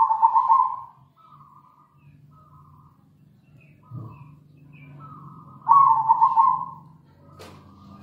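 Zebra dove (perkutut) cooing: two loud bursts of rolling, staccato coos about five seconds apart, with softer coo phrases in between. A sharp click comes near the end.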